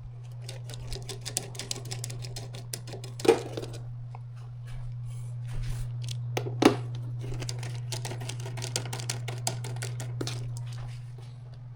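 Small clicks and rattles of screws and a hand tool being handled while the screws are taken out of an electronic instrument's case, with two louder knocks about three and seven seconds in, over a steady low hum.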